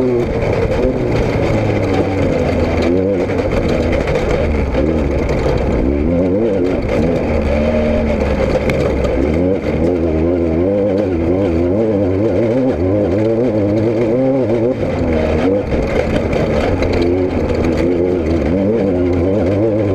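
An engine running loudly and continuously, its pitch wavering up and down as the revs rise and fall.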